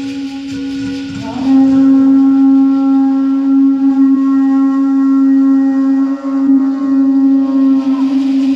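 Live band music in which a wind instrument holds one long, steady note, with a short slide in pitch about a second in before the note settles and is held.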